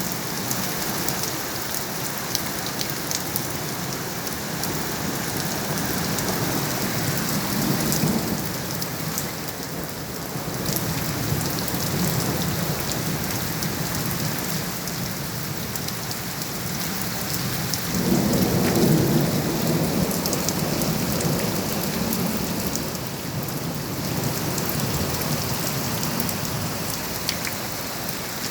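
Heavy rain falling with a steady hiss and pattering drops. Thunder rumbles low, once briefly near the middle and louder for a few seconds about two-thirds of the way through.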